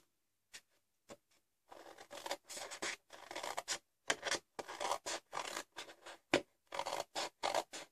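Scissors cutting through a large sheet of scrapbooking paper: after a near-silent first moment, a quick run of short snips with paper rustling starts under two seconds in and goes on throughout.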